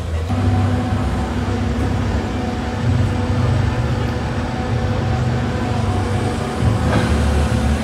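Komatsu PC4000 shovel excavator's 16-cylinder diesel engine and hydraulics running steadily as the boom and front shovel bucket move: a loud, low drone with a steady hum above it.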